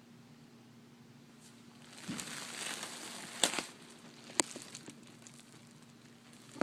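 Crinkling rustle for about two seconds, with two sharp clicks near its end and another near the end, over a faint steady hum.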